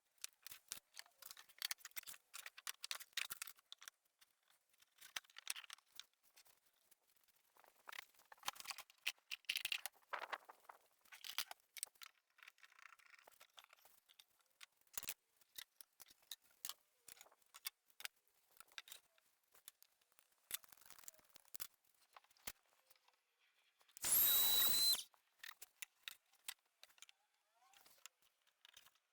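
Thin plywood runner strips being pushed into routed grooves in plywood panels: scattered light wooden clicks and taps throughout. About 24 seconds in comes one loud, high-pitched squeaking scrape lasting about a second.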